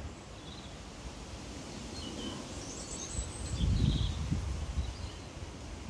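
Outdoor ambience under trees: a few faint bird chirps over a steady background hiss, with a brief low rumble of wind on the microphone a little past the middle.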